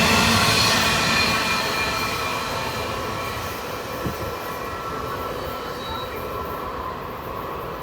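Intermodal freight train cars rolling past on the rails, with thin, steady high-pitched wheel squeal over the rolling noise; the sound fades gradually as the train draws away, with one short knock about four seconds in.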